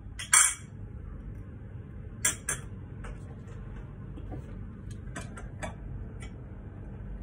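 Metal fork and spoon clinking and scraping against a ceramic plate while eating: a sharp clink about half a second in, a quick pair a couple of seconds later, then a few lighter taps.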